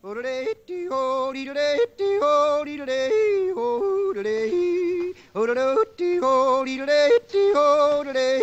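A man yodeling unaccompanied. His voice leaps back and forth between low chest notes and high falsetto notes in quick breaks, phrase after phrase.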